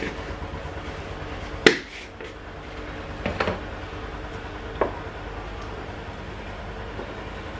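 Kitchen handling sounds over a steady low hum: a sharp click about a second and a half in, a few quick knocks a couple of seconds later and one more single click, as a plastic spice jar is closed and set back down on the counter.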